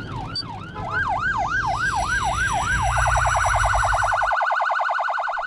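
Emergency vehicle sirens cycling through different tones: a rise-and-fall sweep that speeds up to a yelp of about four sweeps a second, then about three seconds in switches to a very rapid warble. A low rumble sits underneath until about four seconds in.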